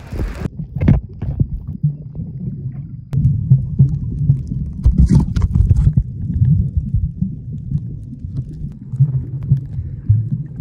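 Muffled, low, churning rumble of water heard with the camera underwater while snorkelling, with a few knocks and a short high hiss about five seconds in.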